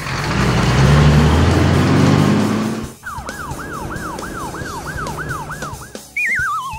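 Cartoon vehicle sound effects: a loud engine rumble for about three seconds, then a quick repeating warbling tone like a siren, about three pulses a second, and near the end a short falling, wobbling whistle.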